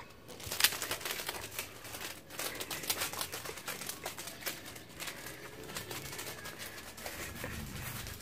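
Sticky tape on a cat's paws crackling and crinkling as the cat walks, a busy run of irregular clicks.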